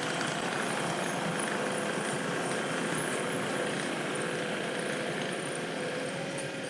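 A vehicle engine running steadily at an even speed, with a constant hum through the noise.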